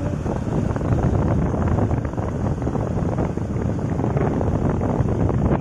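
Wind buffeting the microphone of a moving vehicle, a steady rumble with road and running noise beneath it.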